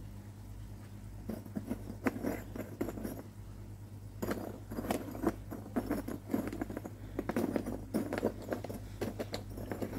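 Pieces of ceramic filter media clinking and rattling against each other and the plastic Bakki shower tray as they are laid in by hand, in irregular runs of small knocks starting about a second in. A steady low hum runs underneath.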